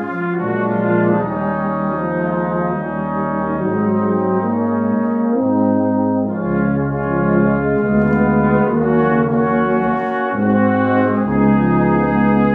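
Small brass band of cornets, euphoniums and tubas playing slow, sustained chords over a tuba bass line that moves every second or two.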